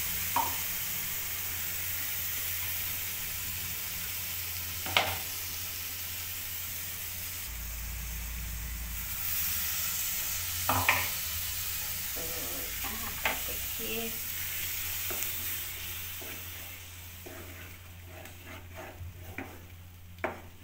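Ground tomato paste sizzling in hot oil over browned ginger-garlic paste in a frying pan, stirred with a wooden spatula, with a few sharp knocks. The sizzle dies down near the end.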